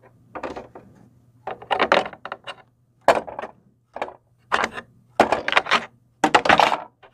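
Small plastic toy pieces clattering and clicking as they are handled and tidied inside a plastic playset, in a run of short, irregular bursts.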